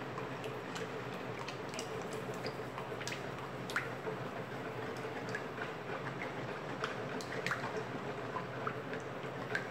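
Used cooking oil being poured into a plastic bowl of lye solution and stirred with a wooden spoon: a faint, steady liquid pour and slosh with scattered small ticks and splashes from the spoon.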